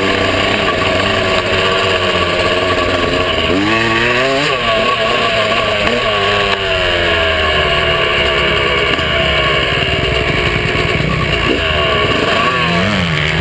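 Yamaha YZ125 single-cylinder two-stroke dirt bike engine running close up, its pitch rising and falling as the throttle is blipped, with sharper revs about four seconds in, around six seconds, and near the end.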